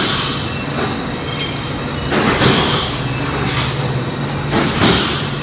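CNC plasma cutter torch cutting stainless steel plate: a loud, continuous hiss and screech over a steady machine hum.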